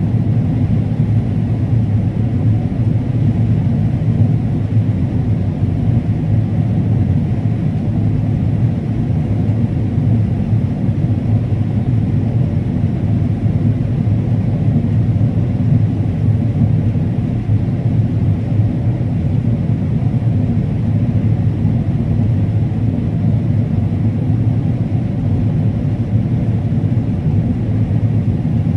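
Combine harvester running steadily while cutting corn: a constant low engine and machine rumble.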